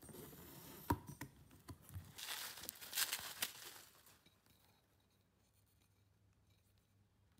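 Faint rustling and crinkling, as of paper or packaging being handled, with a few light taps; it dies away about four seconds in, leaving silence.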